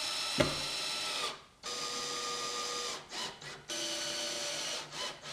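Cordless drill-driver driving screws into a board: its motor whirs steadily in three runs of about a second each, with short bursts in between and a knock about half a second in.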